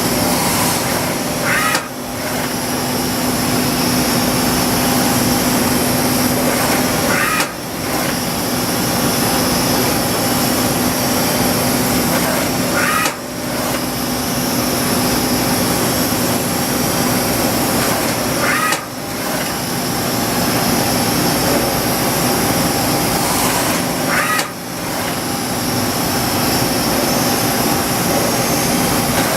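Mazak H-400N CNC horizontal machining center running under power with a steady loud noise. About every five and a half seconds it drops briefly, each time just after a short warbling chirp, in a regular repeating cycle.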